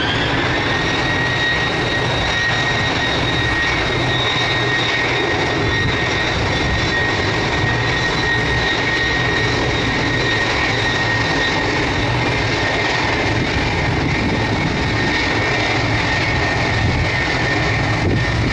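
Jet engines of an Ilyushin Il-76-family four-engine transport as it taxis: a steady, loud high turbine whine over a dense engine rumble.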